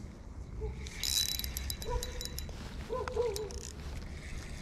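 Fishing reel cranked fast, a high whir with many clicks, as a small fish is reeled quickly across the water to the boat. Two short animal calls with a wavering pitch come about two and three seconds in.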